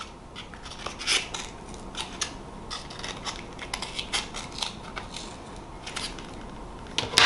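Scissors snipping through a cardboard egg-carton cup, cutting a V-shape: a run of short, irregular snips, two or three a second. A louder knock comes right at the end.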